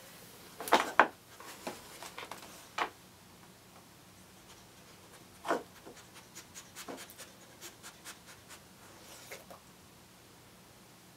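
Light clicks, knocks and scrapes on a hardwood floor: a dog's claws on the boards and a plastic cup being nosed at. The loudest cluster comes about a second in, and a run of small quick ticks follows later.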